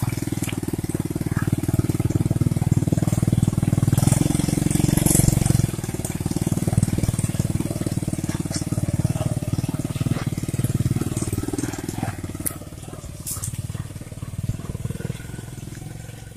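Small motorcycle engine running under load as the bike hauls a rack of oil palm fruit bunches over a rough track. It is loudest about four to five seconds in, then fades over the last few seconds as the bike pulls away.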